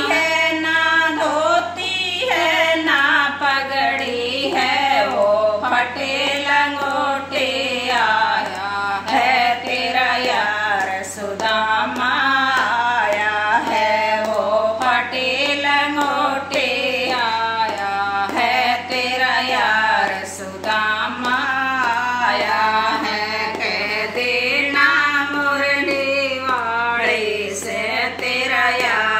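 Women singing a Hindi devotional bhajan about Sudama and Krishna, the melodic lines going on with only short breaths between phrases.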